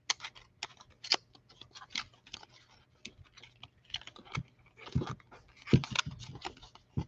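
A foil trading-card pack crinkling and tearing as it is pulled open by hand: an irregular run of small crackles and clicks, a few of them louder.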